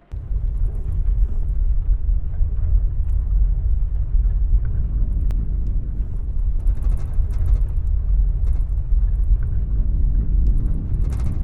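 A mild earthquake: a deep, steady rumble starts suddenly, with light rattling of loose objects in a room coming and going on top, busiest about seven seconds in and near the end.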